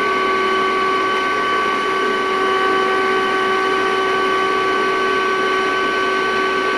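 Vacuum cleaner running steadily, its motor holding a constant whine over the rush of air.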